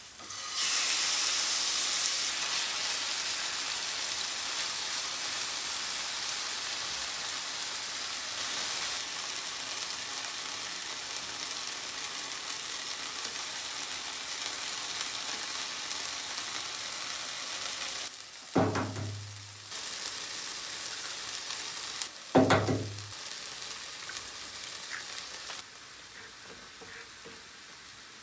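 Food frying in a pan, a steady loud sizzle that settles to a quieter sizzle a few seconds before the end. Twice, a few seconds apart, a short louder sound with a falling pitch cuts through the sizzle.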